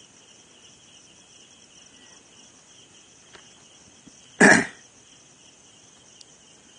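Faint, steady, high-pitched chirring like crickets, with a single short, loud cough about four and a half seconds in.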